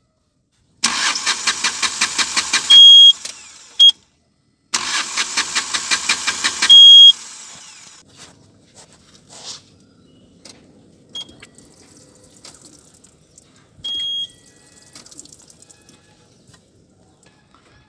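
Mahindra Maxximo's diesel engine cranking on the starter twice, about two seconds each, in an even rhythm of about six beats a second, without firing. Each try ends in a short, loud high beep. It will not start because of a broken wire at the camshaft position sensor connector; only faint clicks and knocks follow.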